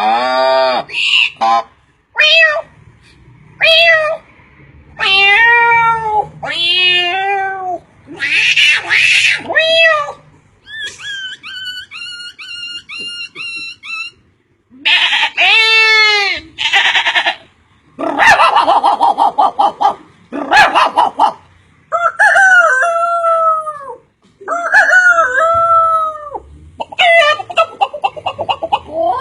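A man imitating a series of domestic animal calls with his voice, including crowing, howling and clucking-like cries. The calls are separate and pitched, many falling in pitch, with rasping stretches, and a fast, evenly repeated chatter in the middle.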